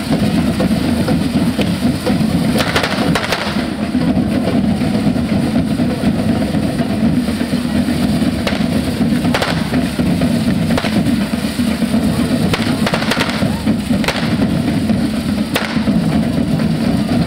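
A devils' troupe drum band playing continuously, with a few short crackling bursts of fireworks through it.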